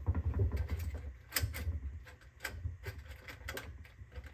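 Dual F20T12 fluorescent fixture starting up on new tubes: a low hum with sharp clicks about once a second as the tubes flicker on and off without striking steadily.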